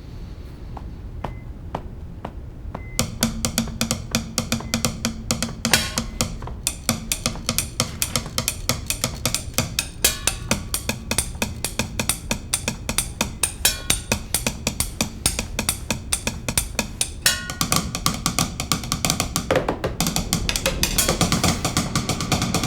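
Background music: a low drone with a few sparse ticks, then about three seconds in a quick, steady drum beat starts and builds in density and loudness towards the end.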